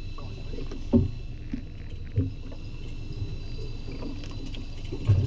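Steady low rumble of a fishing boat's engine with a faint steady high whine above it. Dull thumps about one second and two seconds in and again near the end come from a freshly caught fish flapping on the deck.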